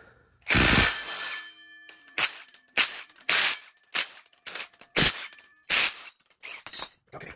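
A string of short metal clanks and clicks, about a dozen at uneven spacing, from tools and bolts as the K24 engine's flex plate is unbolted. The first, about half a second in, is the loudest and leaves a brief metallic ring.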